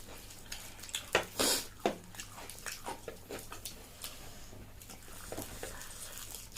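Close wet mouth noises: irregular smacks, squishes and sniffs, with a cluster of louder ones about a second in.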